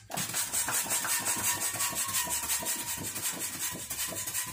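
Balloon pump blowing air into a long pink latex modelling balloon: a steady, fluttering rush of air.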